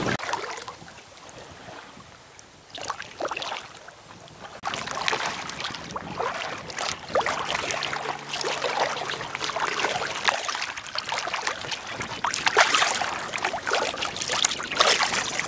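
A double-bladed paddle dipping and splashing, with water lapping around an inflatable pack raft. It is quieter for the first few seconds, then runs on as steady, irregular splashing.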